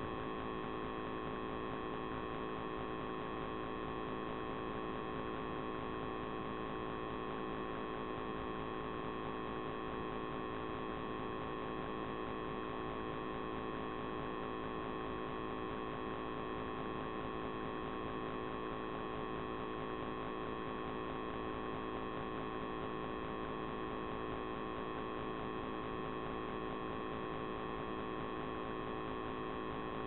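Steady electrical hum made of several fixed tones, unchanging throughout: the self-noise of an underwater camera's electronics in its housing.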